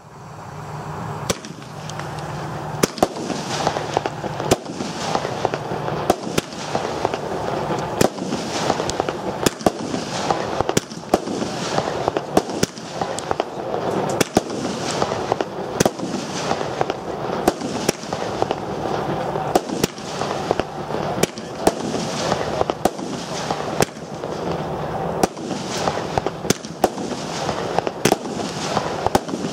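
Vulcan Fireworks High Jinx firework battery (cake) firing a continuous sequence of shots: sharp bangs every second or so over a steady rushing, crackling noise of launches and bursts.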